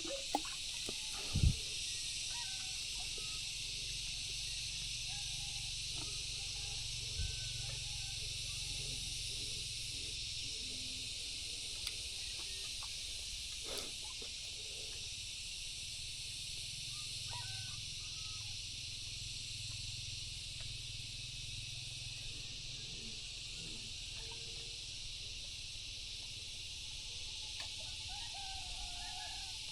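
Steady insect chorus, a dense high buzzing hiss, with a few faint bird chirps. A dull knock sounds about a second and a half in, and a softer one near seven seconds.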